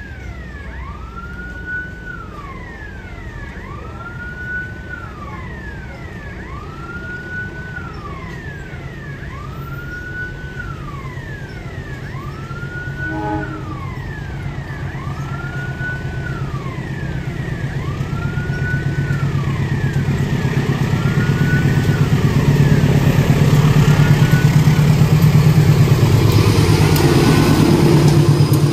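Railway level-crossing warning alarm sounding a repeating electronic tone that rises, holds and falls about every two and a half seconds. A diesel locomotive-hauled train approaches under it, its engine rumble growing steadily louder over the last ten seconds until it covers the alarm.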